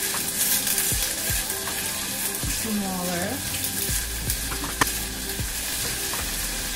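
Sliced red onions sizzling in olive oil in a small stainless-steel saucepan while a silicone spatula stirs them, scraping and tapping against the pan, with a sharp tap about five seconds in. The onions are being sweated soft on reduced heat, not caramelized.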